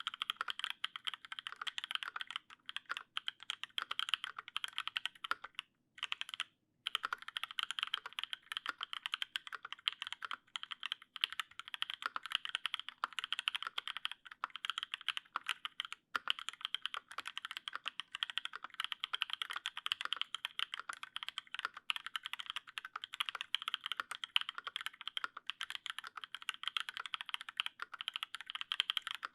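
Continuous fast typing on a custom LZ CLSm mechanical keyboard with lubed Paco switches in an aluminium plate and GMK keycaps: a dense run of key clicks and bottom-outs, broken once by a second of silence about six seconds in.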